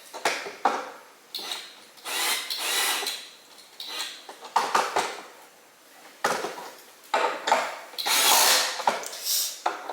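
Irregular scraping, knocking and rattling of tools and wooden furniture parts being handled and screwed together during furniture assembly.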